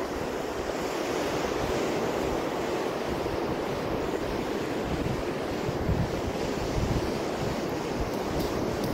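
Steady rush of surf breaking on a beach, with wind buffeting the microphone in low rumbling gusts about six and seven seconds in.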